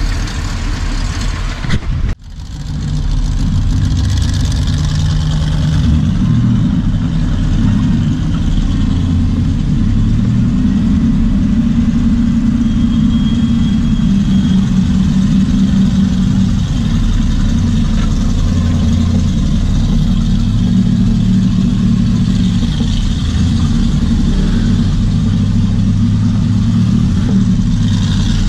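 Rock crawler's engine running at low revs while crawling over a rocky trail, a deep steady rumble that rises and falls slightly in pitch, with a brief dropout about two seconds in.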